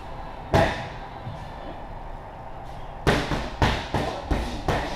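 Boxing-gloved punches smacking into focus mitts: a single strike about half a second in, then a fast combination of about five strikes starting about three seconds in.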